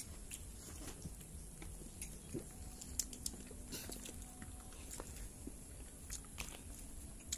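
Quiet eating by hand: chewing and small mouth noises, with scattered soft clicks and taps as fingers pick rice and food off a banana leaf.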